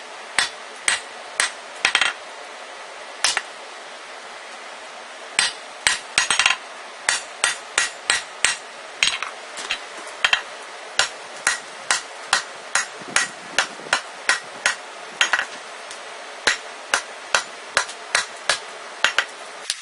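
Hammer blows on red-hot rebar against a steel anvil, sharp ringing strikes at about two a second, with a pause of about two seconds a few seconds in. A steady hiss runs underneath.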